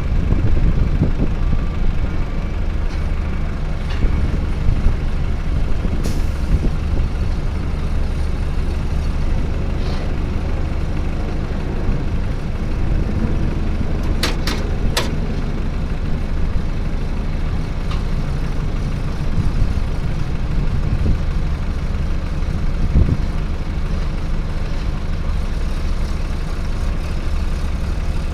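Caterpillar D3C bulldozer's diesel engine running steadily under the operator, a continuous low rumble heard from the cab. About halfway through there are three sharp clicks in quick succession.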